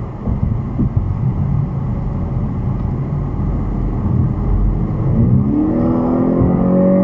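Steady road and engine noise inside a car's cabin. About five seconds in, the engine note rises and then holds as the car accelerates.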